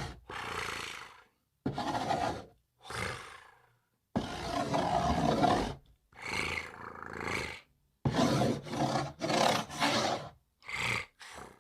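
A metal spoon scraping across a cardboard box in about a dozen short strokes, each up to a second or so long with brief gaps between, as if writing letters.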